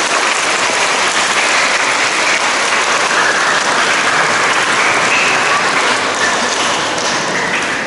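Audience applauding, a dense steady clatter of many hands clapping that begins to die down near the end.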